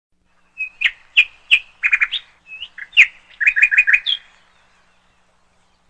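A bird chirping: a quick series of sharp chirps followed by short rapid runs of notes, lasting about three and a half seconds.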